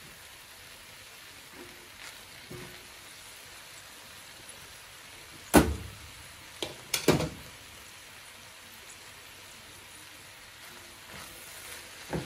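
A small spoon knocking against the rim of a metal cooking pot as cooked rice is scooped in: a few light clicks, then three sharp knocks between five and seven seconds in, and a few more near the end.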